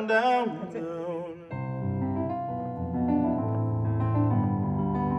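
A voice sings a held note with vibrato that fades out in the first second or so. Then an electric keyboard plays sustained, changing chords.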